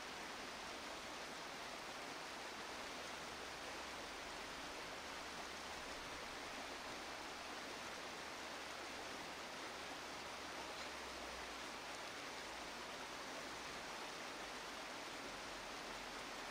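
Steady, even hiss with no pitched buzz in it and no changes.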